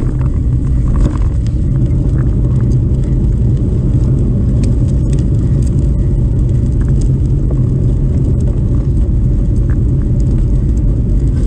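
A car driving: a steady low rumble of engine and tyres, with scattered small clicks and knocks.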